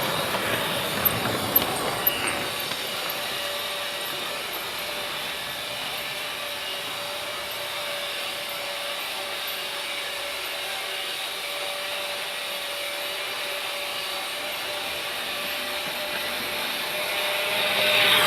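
Freight train rolling past: a steady rolling noise with a few sharp clanks about one to two seconds in, then a faint steady tone over the noise, growing louder again near the end.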